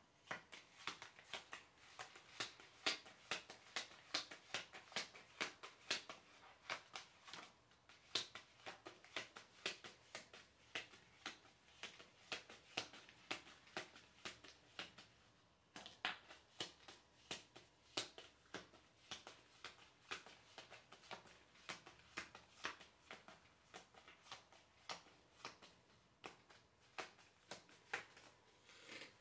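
A deck of tarot cards being shuffled by hand: a faint, quick run of soft card clicks, with short breaks about eight seconds and sixteen seconds in.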